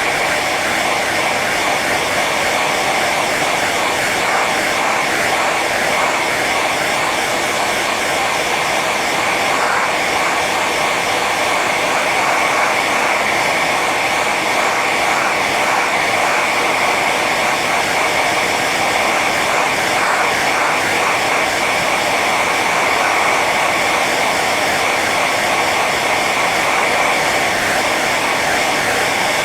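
Hair dryer running on its high setting: a loud, steady blowing whoosh with a faint whine in it.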